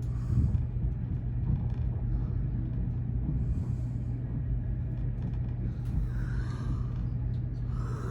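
Steady low rumble and hum of a VIA Rail Canadian passenger car, heard from inside a sleeper cabin while the train runs.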